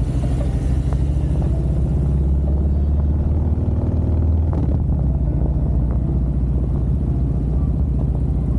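Motorcycle engine running as the bike rides along a street, a steady low engine note with slight changes in pace around the middle.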